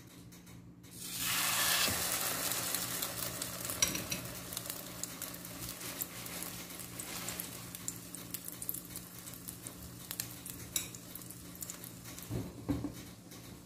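Hot oil in a non-stick frying pan sizzling as a slice of bread for French toast goes in about a second in: loud at first, then settling to a steadier, lighter sizzle with a few small crackles.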